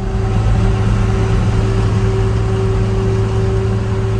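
First-generation Dodge pickup cruising at highway speed, about 100 km/h, with a steady drone of engine and road noise. The engine is running smoothly.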